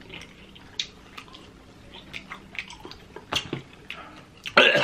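Wet mouth sounds of people eating sauce-covered hot chicken wings: lip smacking, chewing and sucking sauce off fingers, as scattered soft clicks. A short, louder burst of noise comes near the end.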